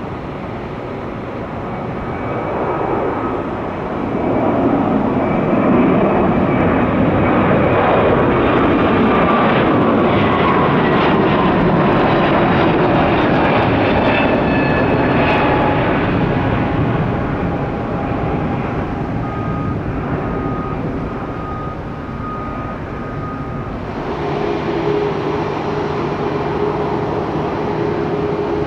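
Twin-engine Airbus A321 jetliner taking off: the engines' roar swells about four seconds in, with a whine that falls in pitch as it passes, then fades away. Near the end, a steady engine hum with a held tone from a Boeing 787-8 taxiing.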